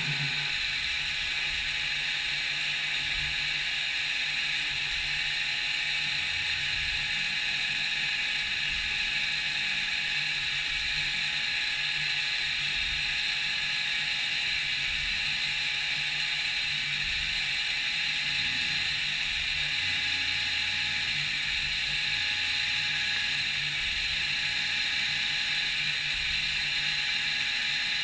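CNC milling machine running steadily while machining a part, an even mechanical whirr with a hiss-like upper band and a low hum.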